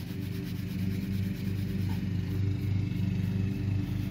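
A motor drones steadily at one fixed pitch.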